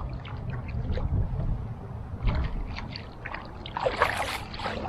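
Wind rumbling on the microphone, with scattered light knocks and rustles of gear on a kayak, and a louder rushing burst about four seconds in.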